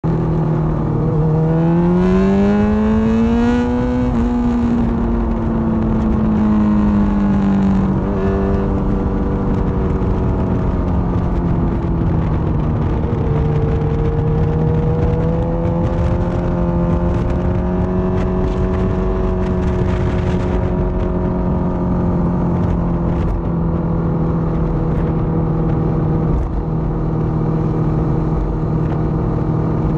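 Motorcycle engine under way at road speed. Its pitch climbs as it accelerates over the first few seconds, sinks back by about eight seconds in, rises again around thirteen seconds, then holds steady at a cruise, over a constant rush of wind and road noise.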